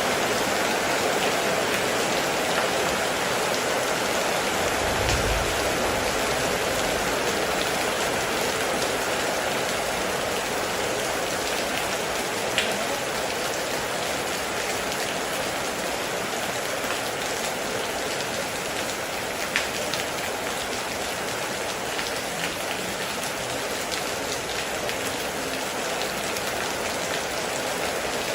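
Heavy rain falling steadily on a metal roof, an even rushing patter. There is a brief low rumble about five seconds in, and two sharper drop hits stand out later.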